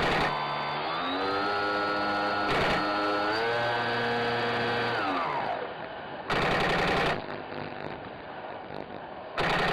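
An electric RC plane's motor and propeller whine. The pitch rises about a second in, steps up again partway through, then falls away and fades a little after five seconds. Four short bursts of rapid airsoft machine-gun fire break in: at the start, briefly under three seconds in, a longer one about six seconds in, and one near the end.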